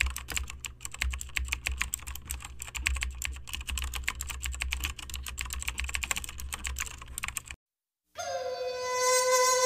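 Keyboard typing sound effect: rapid, irregular key clicks over a low hum, stopping dead about three-quarters of the way through. After a short silence, music begins with held notes near the end.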